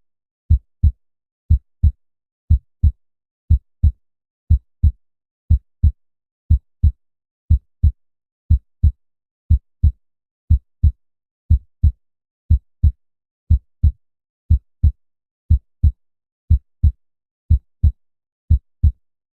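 Heartbeat sound: a steady lub-dub of paired deep thumps, about one beat a second, with silence between beats.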